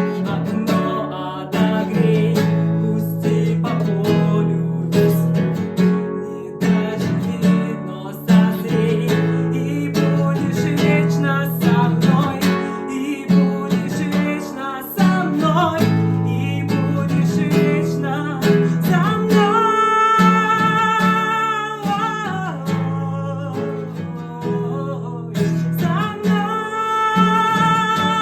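Acoustic guitar strummed in a steady rhythm, with a voice holding long sung notes twice in the second half.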